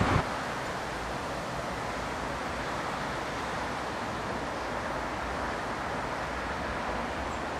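Distant road traffic: a steady, even hiss and hum with no distinct events.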